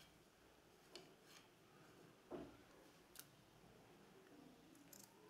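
Faint, separate snips of scissors cutting cotton cord, a few short sharp clicks, with a softer knock a little over two seconds in.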